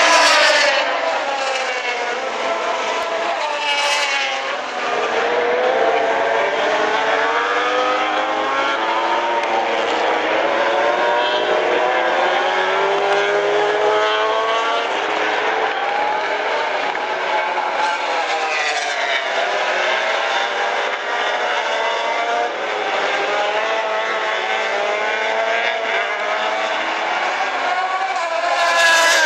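Several racing motorcycles lapping a circuit, heard at a distance. Their engine notes overlap and keep rising and falling as the bikes accelerate, shift and pass.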